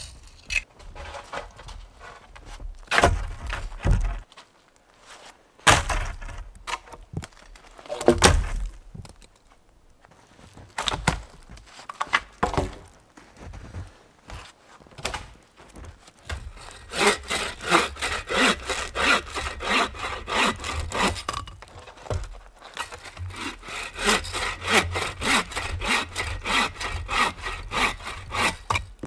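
Bow saw cutting through a damp, snow-covered branch in quick, even back-and-forth strokes, starting a little past halfway. Before that come scattered separate knocks and crunches.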